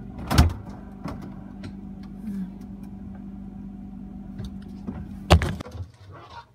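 A steady low mechanical hum with two sharp knocks, one about half a second in and a louder one about five seconds in, after which the hum stops.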